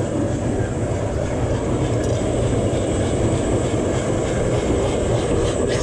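A steady, loud, low roar with a faint high whine over it and no rhythm, the kind of continuous noise of forge-shop equipment running; sharp metallic taps start right at the very end.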